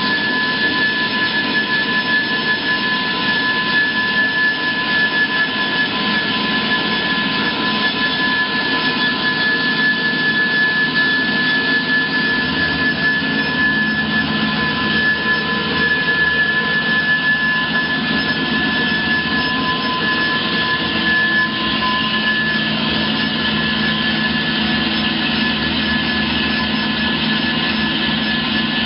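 Hyd-Mech S20 Series 2 horizontal bandsaw running steadily with a high whine, its 2-horsepower motor and blade drive coming up to full level at the start.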